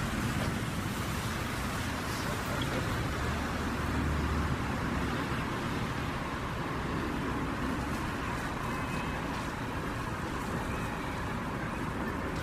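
City street traffic noise: a steady rumble of cars, swelling briefly about three to four seconds in.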